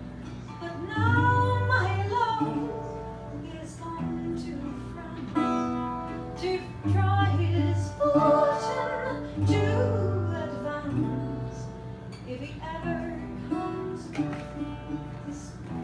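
Music: a song with strummed acoustic guitar, bass notes and a singing voice.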